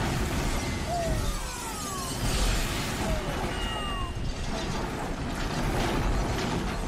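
Movie explosion: a house blowing apart in a heavy rumbling blast, with debris crashing and shattering as a police car is flung over. Several short falling whistles cut through in the first four seconds.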